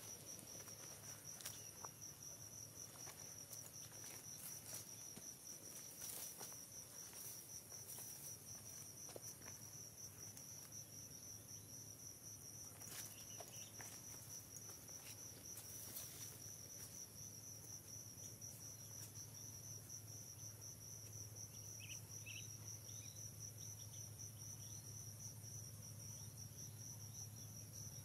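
Forest insects trilling in a faint, steady, high-pitched fast-pulsing drone, with a few soft clicks and brief chirps about three quarters of the way through.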